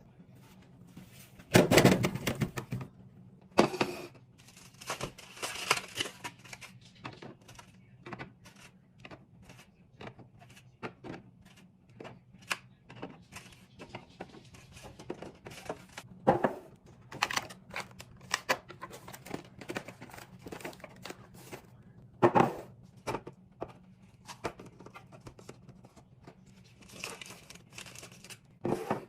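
Groceries and plastic containers being handled and put away in a fridge: a run of small clicks and taps, crinkling of plastic packaging, and several louder knocks as items are set down.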